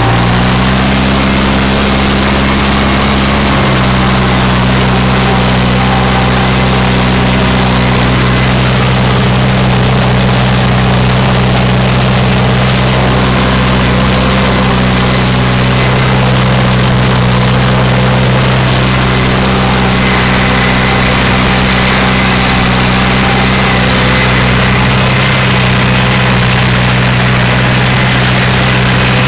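Tractor engine running steadily while driving a rotary hay tedder through cut hay; its pitch steps up slightly in the first few seconds, then holds even.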